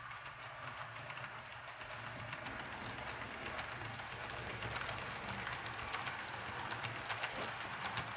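Märklin model train running on its track: a low motor hum under the rattle of metal wheels and the sliding center-rail pickup ski, growing louder as the train approaches. Closely spaced clicks come in about halfway through as the hopper cars pass close by.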